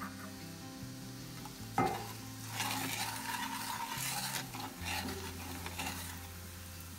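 Wooden spoon stirring a melted-butter basting sauce with rosemary in a cast-iron skillet, the butter sizzling. The stirring starts about two seconds in with a knock of the spoon, then scrapes on steadily.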